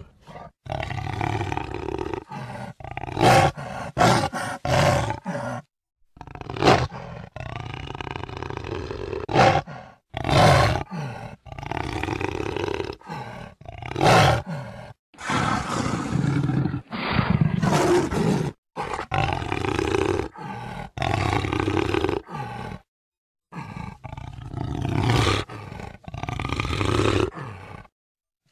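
Jaguar roaring and grunting: a string of rough, hoarse calls, each a second or two long, some with sharp loud peaks. The calls are separated by short gaps and abrupt cuts, as from spliced recordings.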